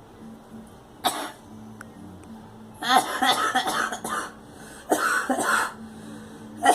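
A girl coughing: one short cough about a second in, then a run of coughs near three seconds in, another short run near five seconds, and a further run starting at the end.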